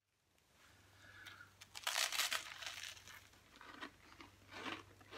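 Crinkling and crunching of snack bars being handled, unwrapped and bitten into: a few short crackly bursts, the loudest about two seconds in.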